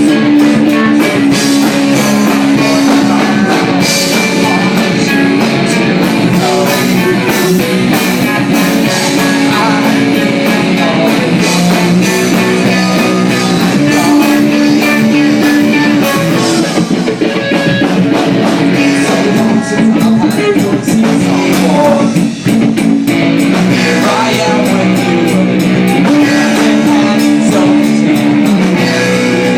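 Live rock band playing loudly, with guitar and drum kit.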